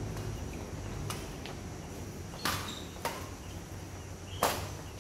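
Badminton rackets striking a shuttlecock during a rally: a series of sharp smacks about one to two seconds apart, the loudest about two and a half and four and a half seconds in.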